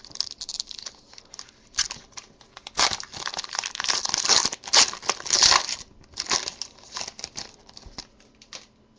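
Wrapper of a Panini Crusade trading card pack being torn open and crinkled. It comes in irregular crackly bursts, loudest and densest in the middle, then lighter crinkling near the end.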